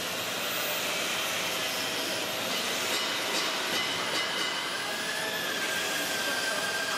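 Metal fabrication shop ambience: a steady, dense hiss of machinery noise with faint thin whining tones over it.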